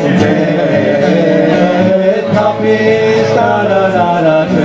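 Live music: an acoustic guitar strummed under sung vocals, the voice holding long notes.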